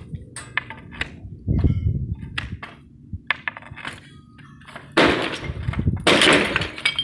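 Badly set facade veneer tiles being knocked loose and falling, breaking and clattering, with scattered knocks at first and the loudest crashes about five and six seconds in. The tiles are so poorly bonded that they come away with only a broom, no chisel needed.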